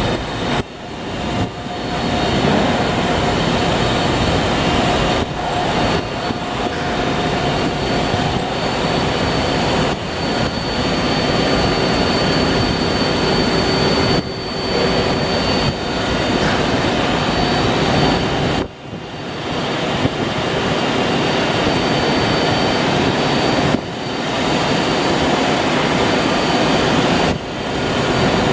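Red Ring (National Broach) GFF CNC gear shaver running under power: a loud, steady mechanical whir with faint high and mid whines. The sound drops out briefly several times.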